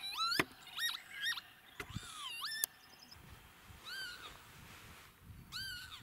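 Northern lapwings calling: a quick run of slurred, sweeping calls, some rising and some dipping then rising, over the first three seconds. Then two single arched calls come about four and five and a half seconds in.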